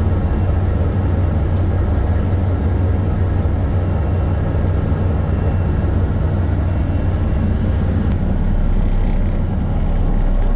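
A boat's engine running steadily under way: a constant deep hum and rumble. About eight seconds in, the hum turns deeper and steadier.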